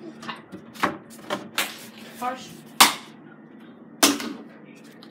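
A series of about five sharp knocks and bangs, the loudest a little before three seconds in, with a brief pitched sound between them.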